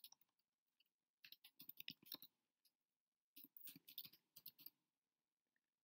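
Faint typing on a computer keyboard: two short runs of keystroke clicks about a second apart.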